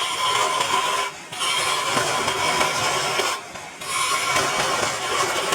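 A tool worked against wood in long strokes, each about two seconds, with short pauses between.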